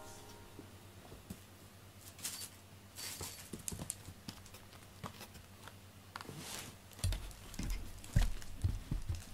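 Light scattered rustling and clicking as cats shift about, then a few soft, low thumps from about seven seconds in.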